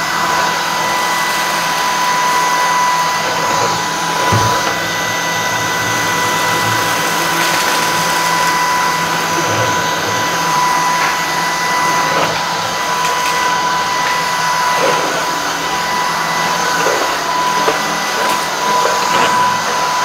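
Shark Vertex Pro cordless stick vacuum running steadily on a hard floor, a constant motor whine over the rush of air, on maximum suction with the brushroll on its slower hard-floor setting. A few faint ticks come through.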